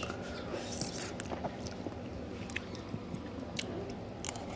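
A person chewing a mouthful of soft food, spaghetti in tomato sauce, close to the microphone, with irregular small wet clicks and smacks from the mouth.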